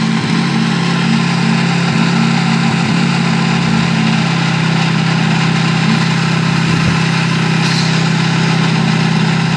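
An engine running steadily at an even, unchanging speed, with a constant low hum.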